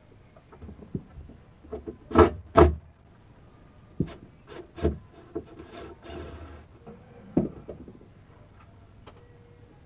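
Hands knocking and scraping against a wooden subwoofer enclosure: two loud knocks about two seconds in, then scattered clicks and a short scrape.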